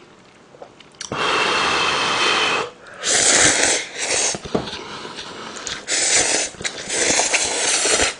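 A person slurping instant ramen noodles into the mouth: one long slurp about a second in, then a run of shorter slurps.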